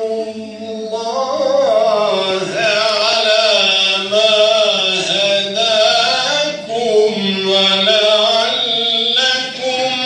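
Solo male voice reciting the Qur'an in the melodic, ornamented Bosnian mekam style. It sings long phrases with held, wavering notes and short breaks between them.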